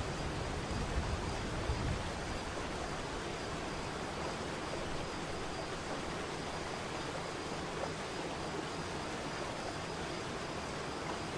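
Waterfall: a steady rush of falling water, with a low rumble in the first two seconds that fades out.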